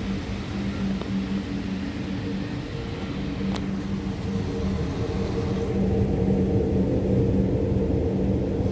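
2010 Buick Enclave's 3.6-litre V6 idling steadily, heard at the rear where a shop exhaust-extraction hose is clamped over the tailpipe. The hum grows louder about six seconds in as the exhaust end is neared.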